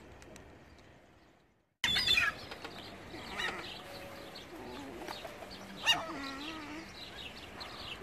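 Gulls calling: many overlapping squawks and cries, the loudest about two seconds in and another near six seconds, over light outdoor background noise. The calls start sharply after a brief faint stretch that drops to silence.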